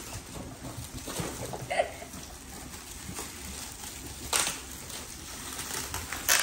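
Gift wrapping paper and metallic foil wrap being crinkled and torn off presents, with sharp ripping sounds about four seconds in and again near the end.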